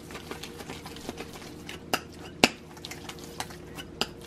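Crockery and a metal fork being handled and set down on a plastic tray: a few light clicks and knocks, the sharpest about two and a half seconds in.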